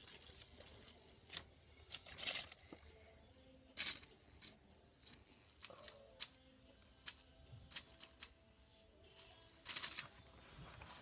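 Irregular small clicks and brief rustles from handling a toy butterfly against hair.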